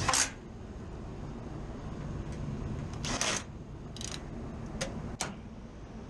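Cordless drill driving sheet-metal screws into a rooftop HVAC unit's access panel: short bursts at the start and about three and four seconds in, then two sharp clicks near the end.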